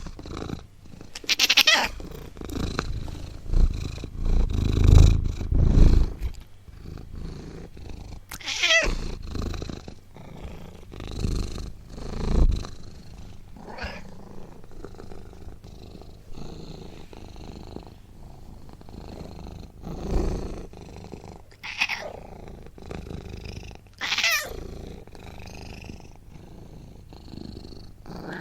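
Cat purring in slow low swells, broken about four times by short, falling high-pitched calls.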